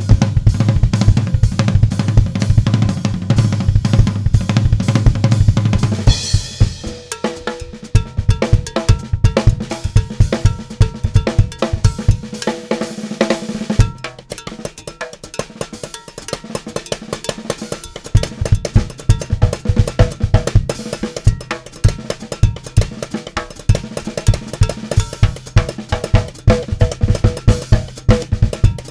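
Drum kit solo: fast, dense bass drum and tom strokes, a cymbal crash about six seconds in, then a melody of pitched, cowbell-like percussion notes over a steady bass drum pulse.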